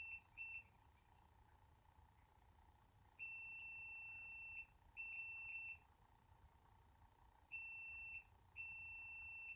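Multimeter continuity beeper sounding as the probes bridge a compressor's terminals: two short beeps at the start, then four longer steady high-pitched beeps. The beep signals continuity through the windings between the terminals, a good sign for the compressor.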